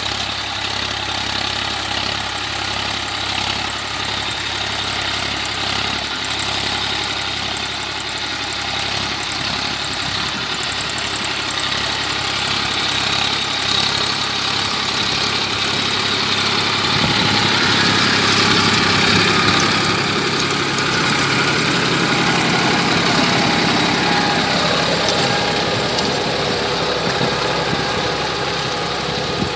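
Massey Ferguson 241 DI tractor's three-cylinder diesel engine running steadily under load while pulling a rotavator through the soil. It grows louder for several seconds past the middle.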